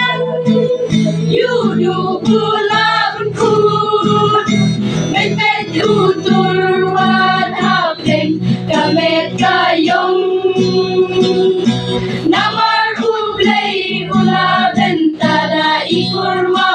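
A group of mostly female voices singing a song together, accompanied by a strummed acoustic guitar.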